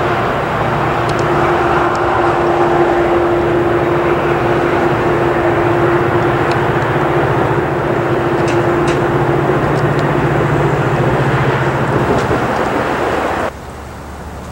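Metra diesel push-pull commuter train running along the line: a loud steady engine drone with a held tone and rail rumble, with a few sharp clicks from the wheels. The tone fades out after about ten seconds, and about a second before the end the sound drops suddenly to a quieter windy rush.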